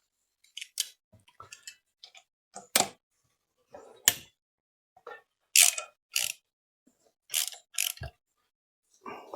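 Hand tools clicking and clinking against motorcycle engine-mount bolts as they are loosened: about a dozen short, sharp metallic clicks at irregular intervals.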